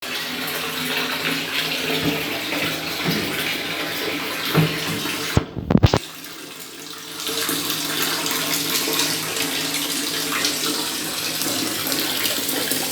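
Water running and splashing steadily into a bathtub. A little over five seconds in there are a few sharp knocks, then the water sound drops for a moment and comes back.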